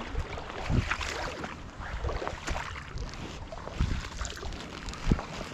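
Stream water splashing and running, with wind buffeting the microphone and a few irregular splashes or knocks.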